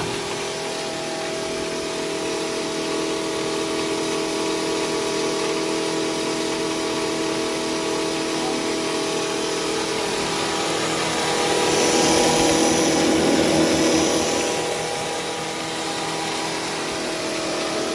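Electric stoneless stainless-steel mini besan grinder running steadily, its motor giving a constant hum with several held tones. About twelve seconds in it turns louder and rougher for roughly three seconds, then settles back.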